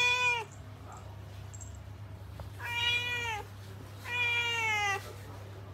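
Orange tabby cat meowing: the tail end of one meow, then two drawn-out meows of about a second each, each dropping in pitch at the end.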